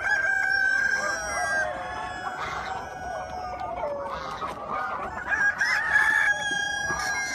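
A flock of chickens: roosters crowing over one another with hens clucking, several calls overlapping throughout.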